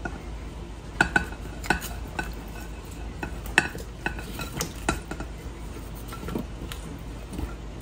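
Chopsticks clicking and scraping against a glass bowl in irregular taps, each with a short glassy ring, as potato and carrot chunks are pushed into a pot of broth, with softer plops near the end.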